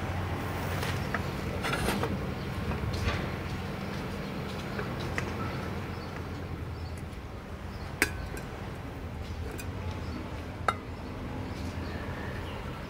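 A metal saucepan and stacked plates being handled and packed in a cardboard box: scattered soft knocks and two sharp clinks, about eight and ten and a half seconds in, over a steady low background hum.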